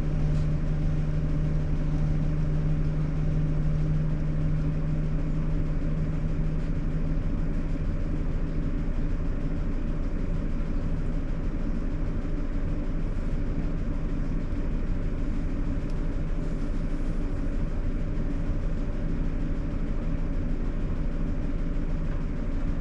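Sharp AY-J40S-W air conditioner making its abnormal noise: a steady low hum with a strong droning tone and fainter tones above it, the main tone easing a little several seconds in. This is the fault noise that repairs, including one for a frequency-related fault, have not cured.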